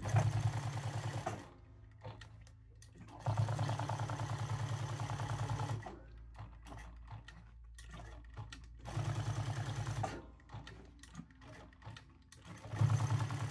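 Jack S5 sewing machine stitching a leather patch onto a hat in four short runs with pauses between, the longest lasting about two and a half seconds, each run a fast even stitch rhythm.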